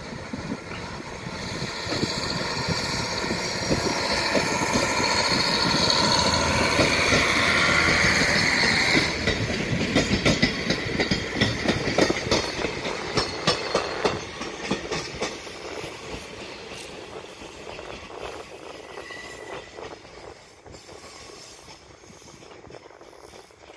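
Diesel railcar approaching with its engine running, its tone rising and growing louder, then passing close with the wheels clacking over rail joints about nine seconds in. The sound then fades as it moves away.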